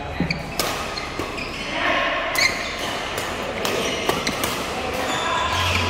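Badminton rally in a large echoing hall: racket strings striking the shuttlecock with sharp smacks every second or so, from this court and neighbouring ones.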